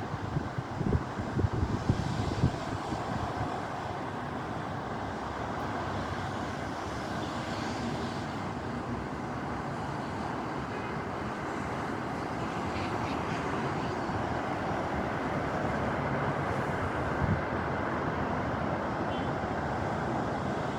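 Strong wind blowing, a steady rushing noise with uneven low buffeting thumps on the microphone in the first few seconds.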